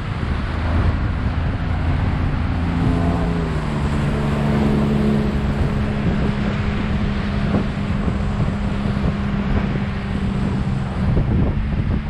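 Motor of a small aluminium boat running under way, its note rising about three to four seconds in and then holding steady, under heavy wind buffeting on the microphone. A few knocks come from the hull slapping through the chop.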